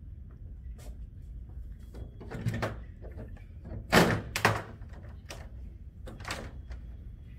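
A handful of short knocks and thuds from parts and tools being handled, the loudest two close together about four seconds in, over a steady low room hum.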